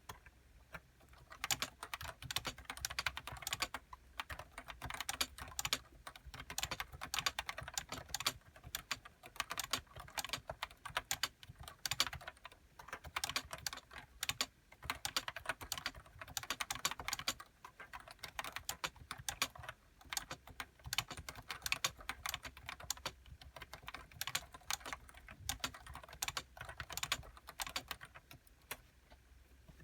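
Continuous typing on a Nissho KB106DE keyboard with Topre 30 g uniform switches and HiPro keycaps: fast runs of keystrokes broken by short pauses, stopping near the end.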